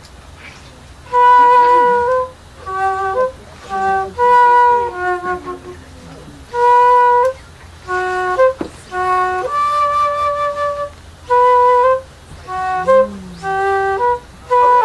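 Flute playing a simple melody of separate held notes in short phrases, with brief pauses between them.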